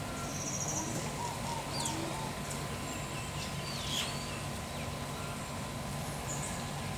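Common mynas calling: a short trill near the start, then scattered sharp whistled calls, the loudest about four seconds in, over a steady low hum.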